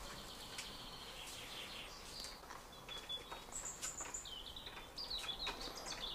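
Small birds chirping and calling over a faint outdoor hiss: scattered short high chirps, then a quicker run of chirps in the second half.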